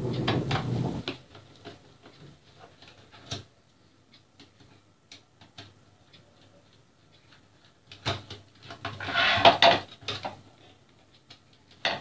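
Screwdriver turning out the screws of a 12 V switch-mode power supply's perforated sheet-metal cover, with scattered metallic clicks, scraping and rattling. The handling noise is louder in the first second and again from about eight to ten seconds in.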